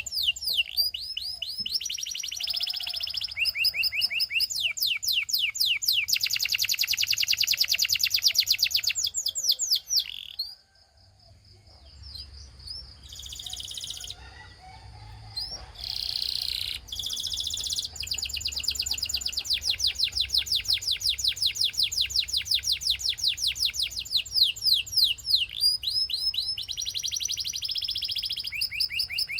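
Belgian canary singing a long song of fast rolling trills and rapid repeated high notes. The song breaks off for a moment about ten seconds in, then resumes.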